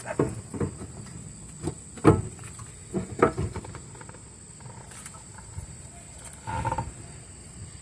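Scattered metal knocks and clinks as a new front wheel hub assembly is worked into place on the steering knuckle, several in the first few seconds and a short louder clatter near the end.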